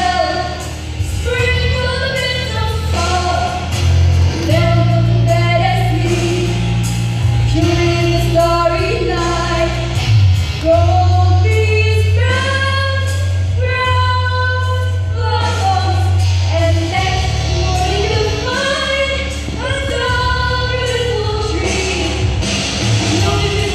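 Singing with musical accompaniment, a song from a stage musical: held sung notes over a steady bass line.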